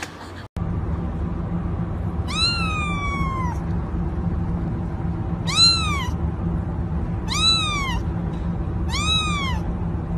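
A kitten meowing four times, high thin mews that rise and fall, the first one longer and drawn out, over a steady low background hum.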